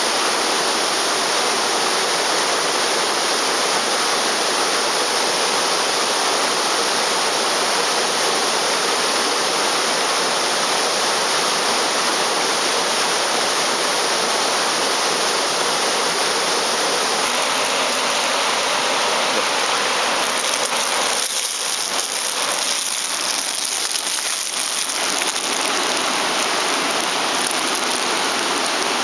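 A rocky forest stream rushing steadily over a small cascade.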